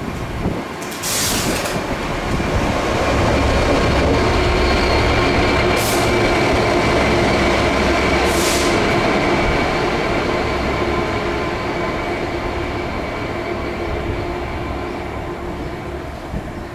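DB Cargo Class 66 diesel-electric locomotive running light past at close range, its two-stroke diesel engine humming steadily over a deep rumble. The sound swells to its loudest about a third of the way in and fades near the end as the loco draws away. Three short hissing squeals cut across it early on and around the middle.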